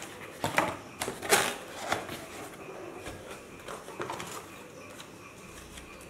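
Cardboard and paper being handled: a few short rustles and scrapes in the first half, then fainter handling, as hands rummage in a small cardboard box and draw out paper leaflets.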